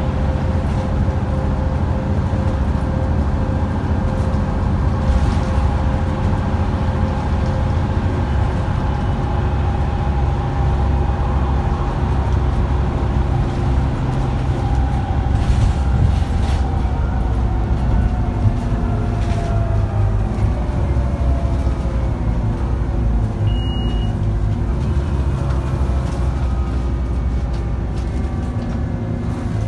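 Scania N230UD OmniCity double-decker bus under way, heard from a seat inside: a steady engine drone with road noise, the engine pitch sliding down and then up again in the second half as the bus changes speed, and a few short knocks from the body.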